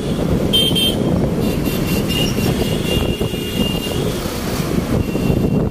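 Road traffic with wind buffeting the microphone, and a vehicle passing close by. A thin high tone runs for a couple of seconds in the middle.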